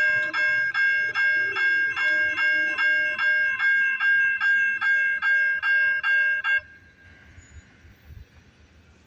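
Railroad grade crossing bell ringing steadily, about three strokes a second, while the crossing gates lower. It cuts off abruptly about six and a half seconds in, once the gates are fully down, leaving only faint outdoor noise.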